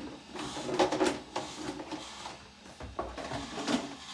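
A shopping bag being handled and opened, with irregular rustles and a few sharp knocks.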